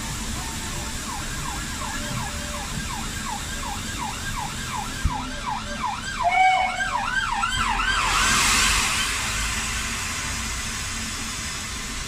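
Emergency-vehicle siren in fast yelp, about three rising-and-falling wails a second, stopping about eight seconds in. A loud hiss follows for about a second.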